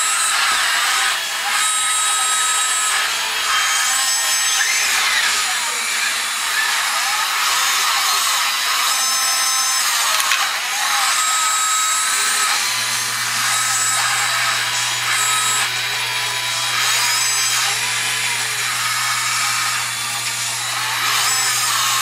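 Electric servo and winch motors of a radio-controlled toy cable backhoe whining and grinding in short runs as its cables raise and swing the bucket, the pitch rising and falling with each move. A low steady hum joins about halfway through.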